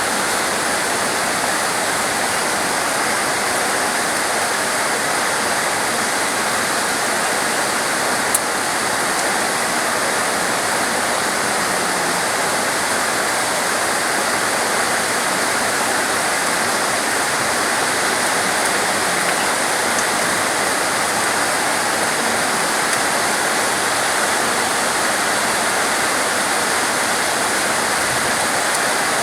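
Heavy, steady tropical rain falling as an even, unbroken hiss. A single short click sounds about 8 seconds in.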